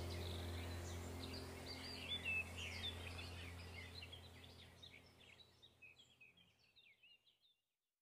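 Small birds chirping and twittering over a faint, steady low drone, all fading out gradually to silence a little past seven seconds in.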